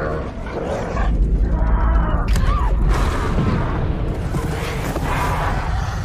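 Film sound mix of a volcanic eruption and stampede: a deep rumble and booms that swell about a second in, with pitched cries and a film score layered over it.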